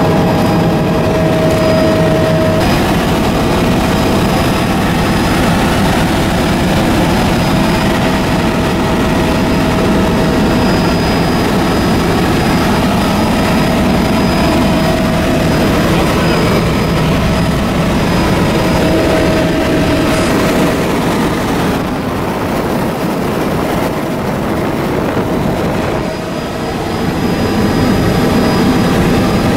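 An engine running steadily, a dense rumble with a constant high whine over it; it eases briefly about 26 seconds in.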